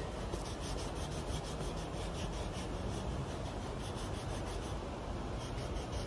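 A pen scribbling on the paper of a coloring book in quick back-and-forth strokes, colouring in an area.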